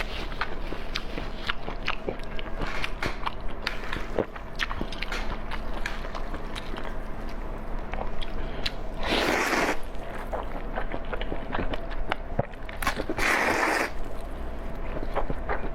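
Close-miked eating: steady chewing and biting with many small wet clicks and smacks. Two louder hissing rushes come about nine and thirteen seconds in.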